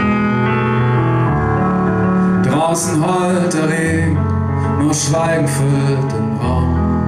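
Live song: sustained piano chords on a stage keyboard, joined from about two and a half seconds in by a male voice singing, which drops out again near the end.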